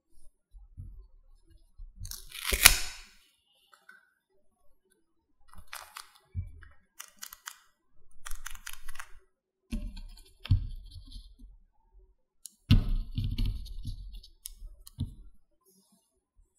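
Tape-laminated paper craft pieces handled by hand: scattered crinkles and rustles with soft taps on the table. The loudest is a sharp crinkle about two and a half seconds in.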